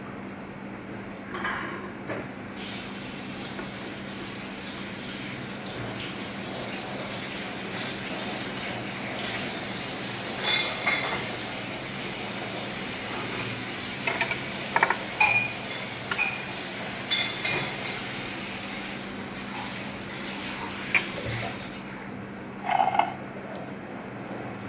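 Water running steadily from a tap, turned on a couple of seconds in and shut off shortly before the end. A spoon and fork clink against a plate several times on top.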